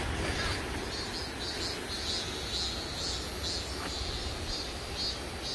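Insects chirping in regular high-pitched pulses, about two a second, over a steady background hiss.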